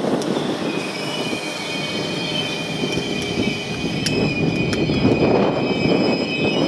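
City Night Line passenger coaches rolling slowly into the platform with a steady rumble of wheels on rail. Under that, a high squeal of several steady tones sets in about a second in and holds as the arriving train slows. There are a couple of sharp clicks about four seconds in.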